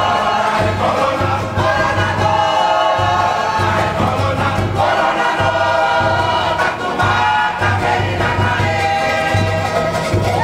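A large Cook Islands choir singing a kapa rima song together in harmony, over a steady low drum beat that comes a little over once a second.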